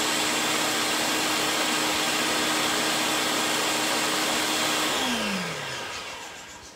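Countertop blender running steadily at full speed, blending the red chile mixture for mole rojo. It is switched off about five seconds in, and its motor hum slides down in pitch as it winds down.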